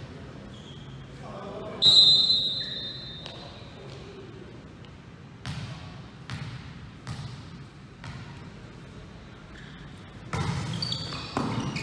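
A referee's whistle is blown in one long blast about two seconds in. Then a volleyball is bounced on the gym floor four times, about one bounce every 0.8 s. Near the end come louder thuds and players calling out.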